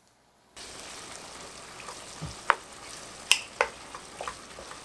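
Ground beef sizzling in a frying pan while a wooden spoon stirs it, starting about half a second in, with a few sharp clicks and scrapes of the spoon against the pan.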